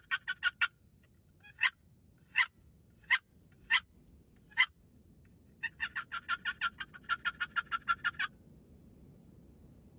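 Wooden box turkey call worked by hand, imitating a hen turkey: a quick run of yelps, then five single sharp clucks, then a longer even run of about fifteen yelps that stops a little past eight seconds in.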